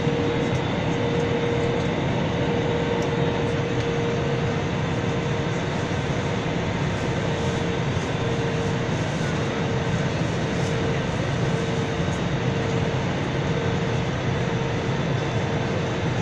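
Steady cabin noise inside an Airbus A320-family jet airliner descending toward landing: an even rush of air and engine sound with a constant hum running through it.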